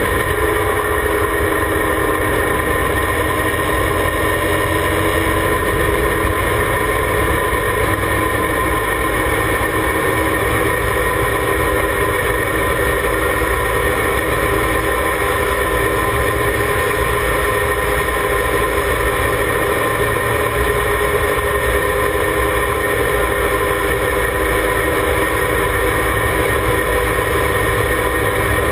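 Formula Mazda race car's rotary engine running at a steady, unchanging pace, heard from on board the open-wheel car, with no revving or gear changes.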